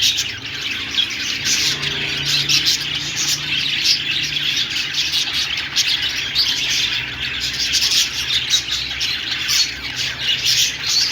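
Budgerigars chirping and chattering continuously, a dense stream of short high chirps and squawks.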